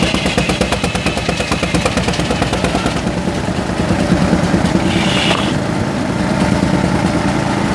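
Big engine powering a sawmill, running with a fast, even beat. A brief high whine comes about five seconds in.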